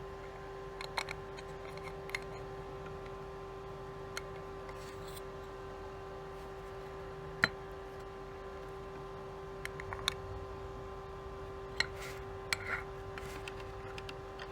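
Scattered light clicks and taps from handling a camera lens and its parts, about eight over the stretch, the sharpest about halfway through. A steady hum runs underneath.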